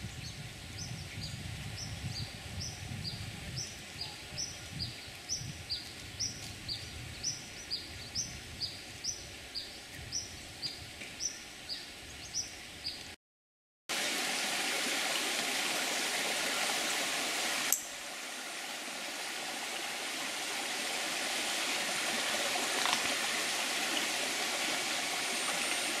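For about thirteen seconds, a forest animal gives a long series of short high chirps, about two a second, each dropping in pitch. After a cut, a shallow rocky jungle stream runs with a steady rushing trickle, with a single click about four seconds into that part.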